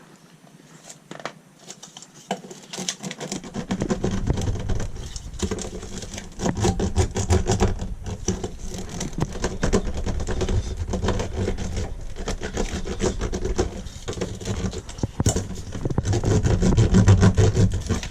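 Bitumen sound-deadening mat being pressed and smoothed down onto a car's floor: dense scraping, crackling and tapping with low thuds, much louder from about three seconds in.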